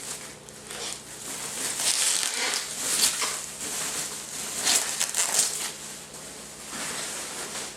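Packaging rustling and crinkling in uneven swells as a large monitor is worked out of its box and wrapping.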